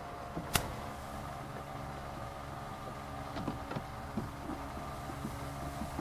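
A single sharp plastic snap about half a second in, then a few light taps and clicks as plastic access covers and parts are fitted by hand on a minivan sliding door's inner panel, over a steady low hum.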